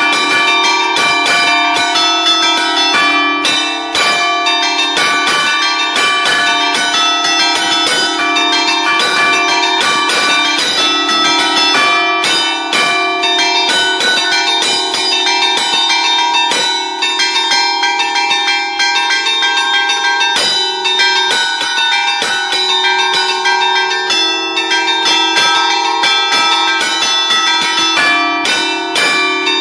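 A five-bell church peal in D4, cast by Barigozzi in 1952, played by hand as allegrezze: the clappers are struck against the hanging bells from a lever keyboard. Quick strikes follow one another without a break, so the notes overlap in a continuous ringing.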